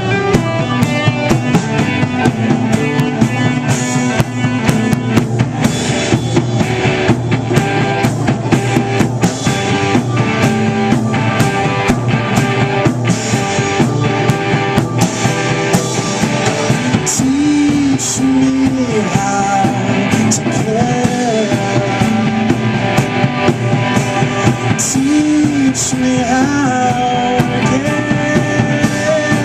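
Live indie rock band playing an instrumental stretch of the song: drum kit with frequent cymbal and snare hits, guitar and bass. Past the midpoint a sustained melody line with sliding, curving notes comes in over the band.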